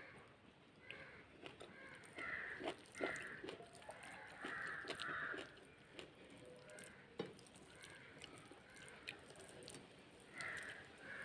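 Crows cawing faintly, a few harsh caws about two to five seconds in and again near the end, with scattered faint clicks.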